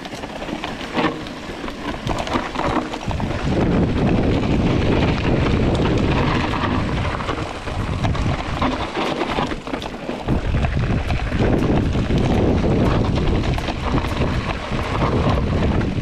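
Wind buffeting the microphone of a mountain bike's handlebar camera during a fast descent, over tyres crunching on loose stones and the bike rattling, with scattered sharp knocks. The low rumble eases briefly just past halfway.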